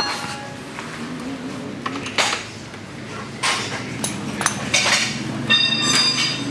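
Metal clinks and knocks of tools and wheel parts as the front wheel of an enduro motorcycle is worked on during a tyre change, with a sharp knock at the start and ringing metallic clinks near the end.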